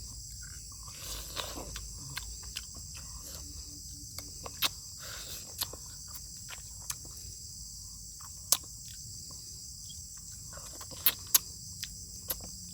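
A person eating beef bone soup: soft mouth and chewing noises with scattered sharp clicks and taps, the loudest about 8.5 s in and twice near 11 s. Under it runs a steady high chirring of crickets.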